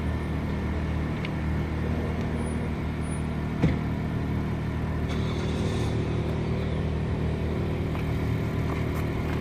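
Harbor Freight portable generator running steadily, shut inside a homemade soundproofed box, a low, even hum that is very quiet for a generator. A single sharp knock comes about three and a half seconds in.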